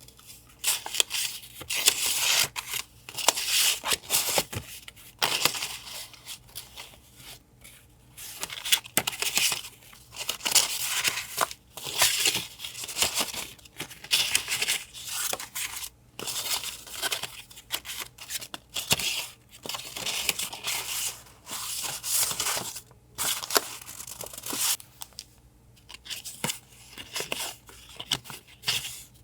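Paper being torn and rustled in many short strokes with brief pauses between.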